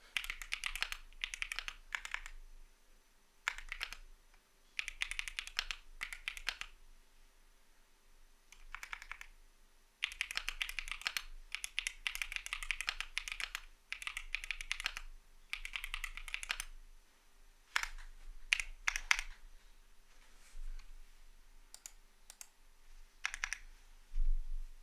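Typing on a CIDOO V75 mechanical keyboard with Matte switches: fast runs of keystroke clacks in bursts of a second or two, broken by short pauses. A single louder, deeper knock comes just before the end.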